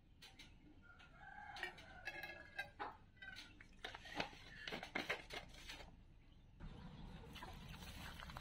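A chicken calling several times in the first few seconds, among scattered light clicks and taps.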